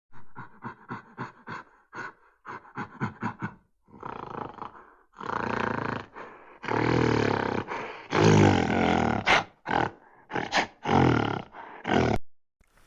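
A large animal calling: a quick run of short calls, then several longer, louder calls.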